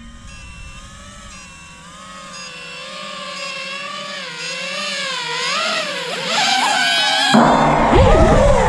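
FPV quadcopter motors and propellers whining, the pitch wavering up and down with the throttle and growing louder as the quad comes closer. About seven seconds in, the motor noise suddenly becomes much louder and fuller.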